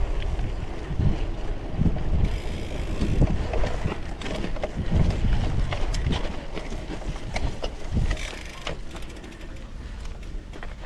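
Wind buffeting the microphone while a cyclocross bike rattles and knocks over a rough dirt trail, with many sharp clicks from the bike. It gets quieter near the end.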